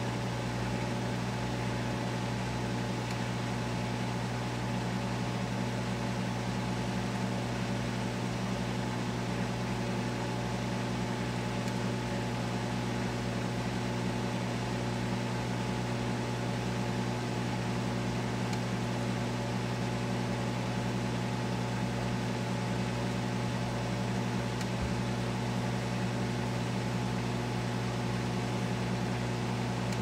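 Microwave oven running: a steady, unchanging electrical hum with a whirring noise behind it.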